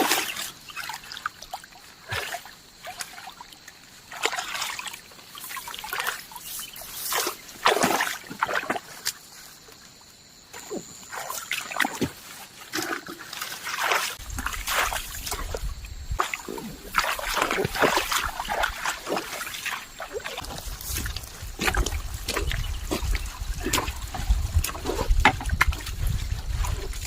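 Shallow paddy water splashing and trickling in irregular bursts as fish are grabbed by hand in a flooded rice field. About halfway through, a low rumble sets in under the splashing.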